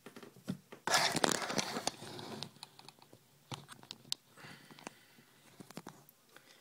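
Hockey trading cards being handled and sorted on a table: a rustling burst about a second in, then scattered clicks and taps.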